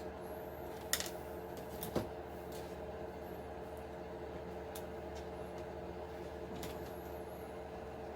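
Light clicks and taps of small hard parts being handled, two sharper clicks about one and two seconds in, over a steady hum of several tones.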